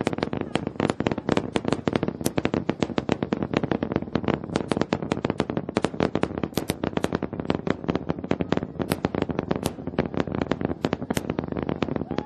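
SpaceX Starship's Super Heavy booster, with its 33 Raptor engines, crackling in ascent: a dense, ragged stream of sharp pops over a steady low rumble.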